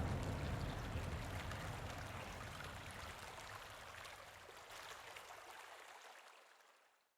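Running water, a steady noisy wash with faint ticks, fading away steadily until it dies out near the end.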